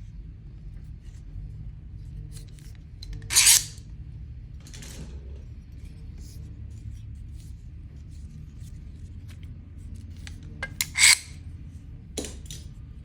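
Metal objects being handled: two short, loud scrapes about eight seconds apart, with light clicks and clinks between, over a steady low hum.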